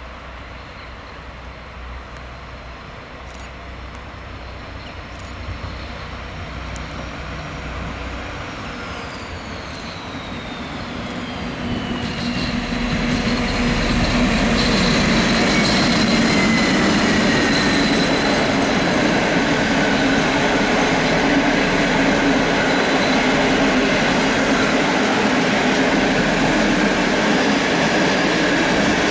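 An SU46 diesel locomotive hauling a passenger train approaches and passes close by, getting steadily louder over the first dozen seconds. A high whine falls in pitch as it goes by. The coaches then roll past with a loud, steady noise of wheels on the rails.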